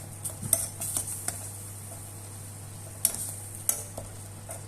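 A utensil stirring massaman curry paste in a pot, scraping and clinking against the pot at irregular moments, with the sharpest clinks about three seconds in.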